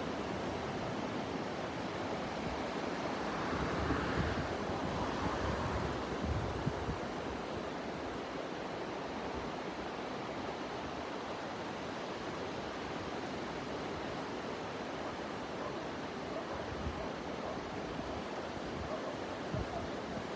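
Ocean surf washing onto a beach in a steady rush, swelling a few seconds in, with wind buffeting the microphone now and then.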